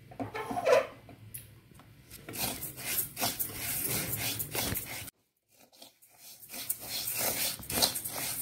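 Dry raw rice being stirred and scraped around a pan with a spatula as it roasts, a gritty rustling scrape in irregular strokes. There is a short louder sound a little under a second in, and the sound drops out completely for about a second midway.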